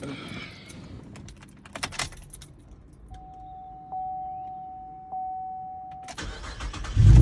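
Clicks and keys jangling, then the 2013 Chevy Camaro's dashboard warning chime sounds as a steady tone, struck again about every second. Near the end the V6 engine cranks and starts.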